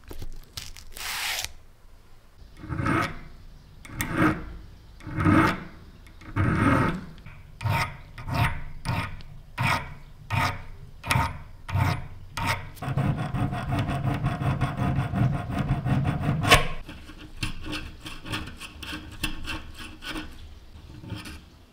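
Needle files rasping by hand on the small brass and bronze parts of an antique lighter. The strokes start slow and separate, about a second apart, then quicken to about two a second. About halfway through they become a continuous fast rasp for several seconds, then go on more faintly.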